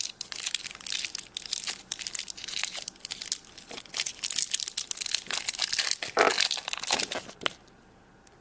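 Crinkling and crackling of the wrapper on a small pack of modelling clay being handled, stopping about a second before the end.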